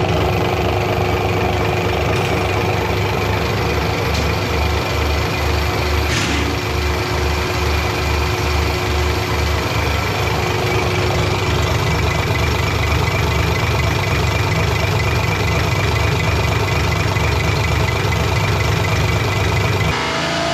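Diesel injection-pump test bench running, its drive spinning an inline injection pump for a Mercedes-Benz OM352A diesel during calibration, with a steady machine hum and whine. A low pulsing beat sounds for several seconds near the start.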